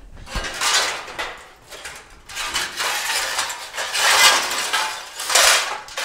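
Scrap sheet-steel offcuts scraping and clanking against each other as they are shifted around in a pile, in bursts.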